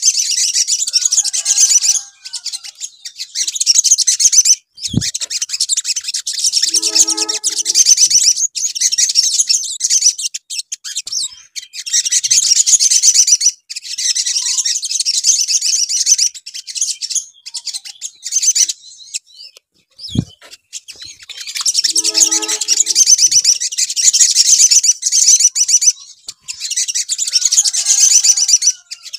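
Olive-backed sunbirds (sogon) singing a fast, high-pitched chattering song in long runs broken by brief gaps, used as a lure recording (pancingan): the same passage repeats about every fifteen seconds. A low thump comes about five seconds in and again about twenty seconds in.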